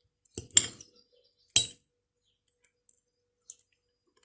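Cutlery clinking against a dish: two quick clinks and a third about a second later, then only a few faint ticks.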